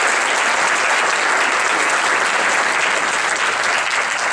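Audience applauding, dense steady clapping at the close of a talk.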